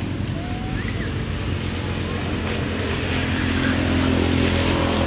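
A motor engine running steadily, a low drone that grows louder in the second half, with a single faint, short high squeak about a second in.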